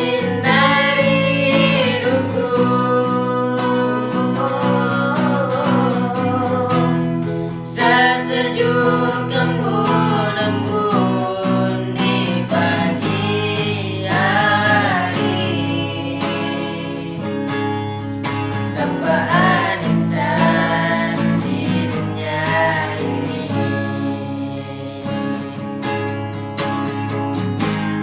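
A voice singing a song with acoustic guitar accompaniment.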